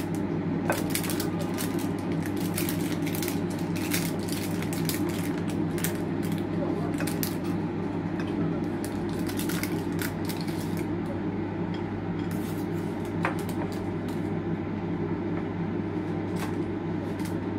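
Metal utensils clinking and scraping against dishes: many short light clicks, thinning out after about eleven seconds, over a steady low hum.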